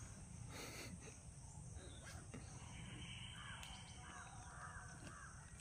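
Faint outdoor background with distant birds calling, including a run of four or five repeated calls in the second half. There is light rustling as a backpack is handled.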